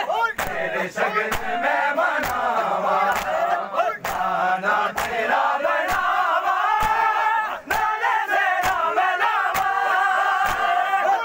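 Crowd of men chanting a Shia noha lament in unison, with rhythmic matam: hands striking chests together about once a second.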